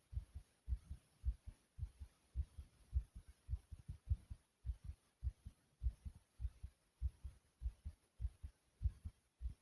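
Human heartbeat, low double thumps repeating steadily a little under twice a second: a fast, even rhythm.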